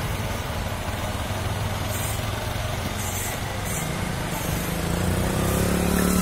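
Road traffic: small vehicle engines running with a steady low hum. One engine grows louder and rises in pitch near the end as it passes close by.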